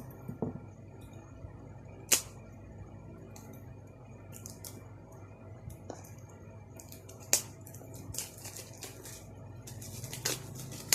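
Packaging of a vape kit box being handled and opened: scattered sharp clicks and snaps of cardboard and plastic, the loudest about two seconds in and again about seven seconds in, with a run of small crackles near the end.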